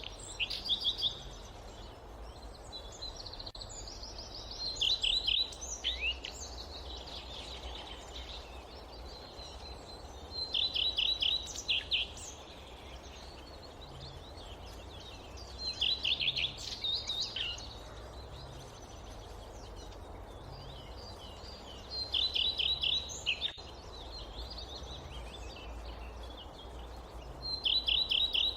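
A songbird repeating the same short, rapid trilled phrase about every six seconds, over a steady low background rumble.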